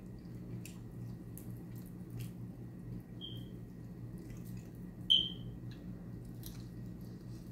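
Wet eating sounds of hot wings being pulled apart and bitten: faint smacks and clicks of lips and fingers, over a steady low hum. Two short high squeaks are heard, a faint one about three seconds in and a louder one about five seconds in, which is the loudest sound.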